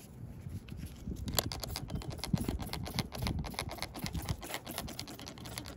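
3000-grit sanding pad rubbing across a plastic headlight lens, a dense run of small scratchy clicks starting about a second in.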